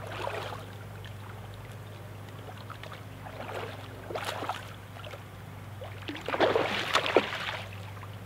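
Water splashing in the river shallows in short bursts, the biggest and loudest about six to seven seconds in, over a steady low hum.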